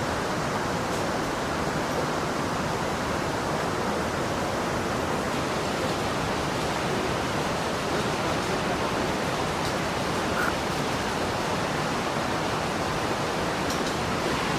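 Steady rush of falling water from a waterfall, an even noise that holds at one level throughout.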